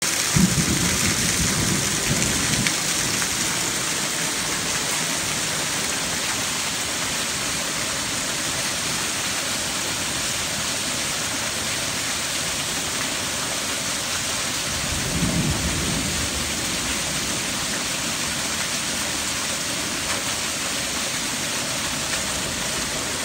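Heavy rain falling steadily, a continuous hiss over the yard and porch, with water pouring off the roof edge and splashing into a bucket at the start. A low rumble swells briefly near the start and again about fifteen seconds in.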